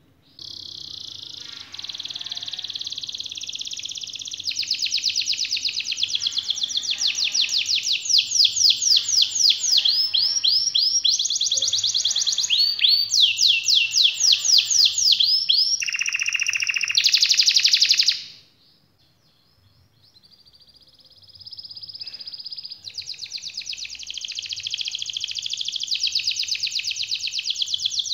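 Domestic canary singing a long rolling song: fast runs of repeated trill notes, high-pitched and unbroken for many seconds. About two-thirds of the way in it stops for a second or two, then starts again softly and builds back up.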